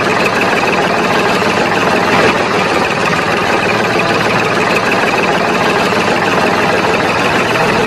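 A motor running steadily at a constant speed.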